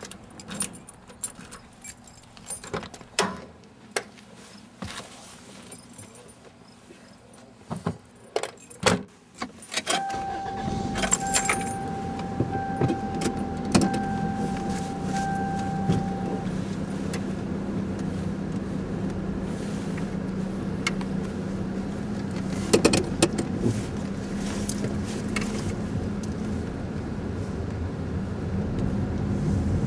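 Keys jangling and scattered clicks, then about ten seconds in a car engine starts and settles into steady running, heard from inside the cabin. A steady high warning tone sounds for about six seconds just after the start.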